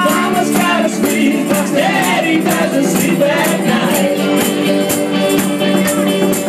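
Live band music with voices singing over acoustic guitar and keyboard. A hand-shaken tambourine jingles on a steady beat.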